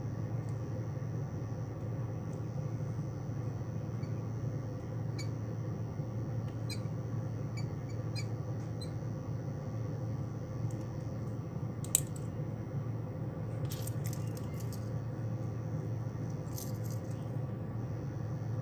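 Light metallic clicks and clinks of split-ring pliers, split rings and treble hooks being handled while hooks are changed on a fishing lure, with one sharp click about twelve seconds in. A steady low hum runs underneath.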